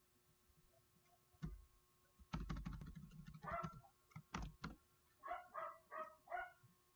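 Computer keyboard and mouse clicks with a few heavier knocks, then a dog barking: one bark about halfway in, and four quick barks near the end, about three a second.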